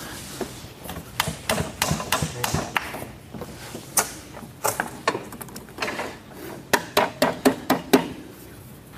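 Irregular knocks and taps, in several quick clusters, from a metal standing-desk frame being shifted and tapped into position under a wooden countertop; the loudest knocks come near the end.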